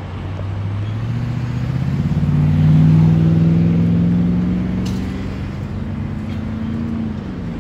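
A road vehicle's engine accelerating, its pitch rising steadily for several seconds, then dipping a little near the end as if shifting gear.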